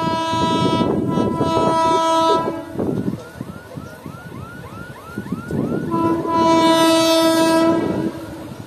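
Electric locomotive horn sounding two long, steady blasts, the second about six seconds in, from a train approaching along the main line. Between the blasts there is a rapid series of short rising chirps.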